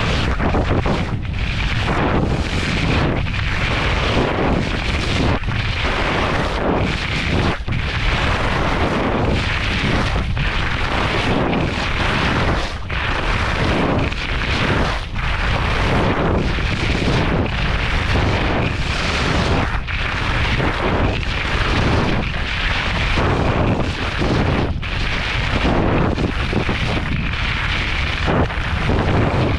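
Skis carving down hard-packed groomed snow: a continuous scraping of the edges that swells and briefly dips at each turn, about once a second, under a heavy rumble of wind buffeting the microphone.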